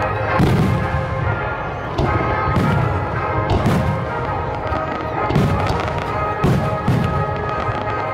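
Aerial fireworks shells bursting in a string of booms, roughly one a second, each followed by a low rolling rumble, with music playing throughout.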